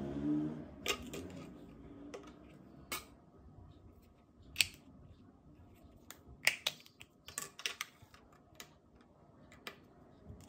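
Sharp plastic clicks and taps at irregular intervals as car remote-key shells and a black flip-key housing are handled and fitted together, with a quick run of clicks a little past the middle.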